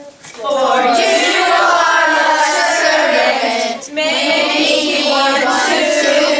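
A group of children singing together into a microphone in two long phrases, with a short break just before the four-second mark.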